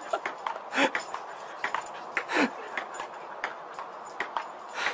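Table-tennis ball clicking back and forth in a rally, bouncing on the table and off the paddles a few times a second. A dog calls out twice over it, the second call falling in pitch.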